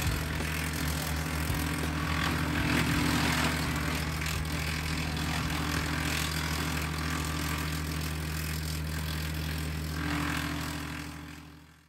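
A 4-inch three-point PTO wood chipper running off an LS MT122 sub-compact tractor's 22 hp diesel engine: a steady engine and chipper drone, with a rough rush that swells and eases as branches are fed in and chipped. The sound fades out near the end.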